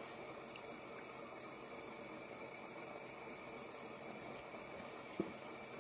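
Faint, steady whirring of a fidget spinner's bearing as it spins down on a long free-spinning run. A single sharp click a little after five seconds in.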